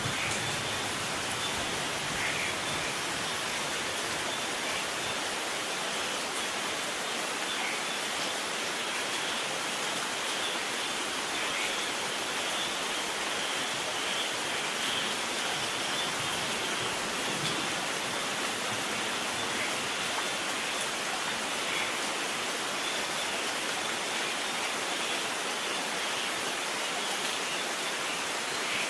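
Steady rain, a dense, even hiss with no thunder.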